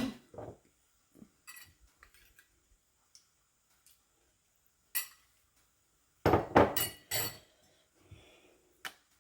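Kitchen utensils and dishes clinking and knocking: a single sharp clink about five seconds in, a quick run of knocks and clinks a second later, and another sharp clink near the end.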